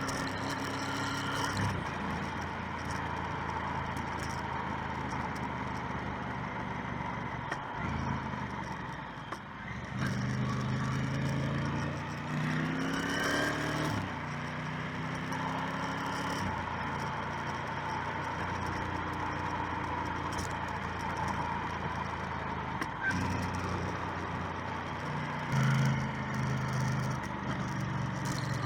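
Motorcycle engine running under way, with steady wind and road noise. About ten seconds in, the engine pitch climbs as it accelerates, with breaks in pitch at gear changes, then settles back to steady cruising; it picks up again near the end.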